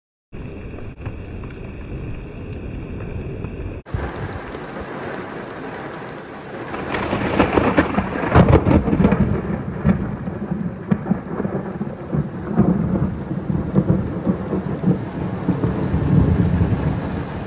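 Heavy rain falling steadily during a thunderstorm, with an abrupt cut to a fuller rain sound about four seconds in. Thunder rumbles in about six seconds in, cracks sharply a couple of seconds later, and keeps rolling loudly.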